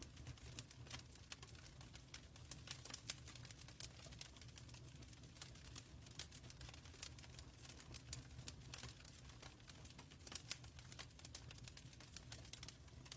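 Wood fire crackling faintly in a fireplace: irregular snaps and pops over a low, steady rumble.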